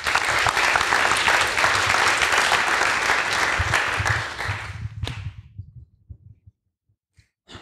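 Audience applauding, dying away after about five seconds.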